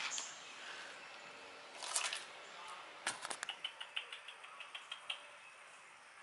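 A run of short, high chirps at about five a second from a small animal, starting about three seconds in, with a rustle about two seconds in.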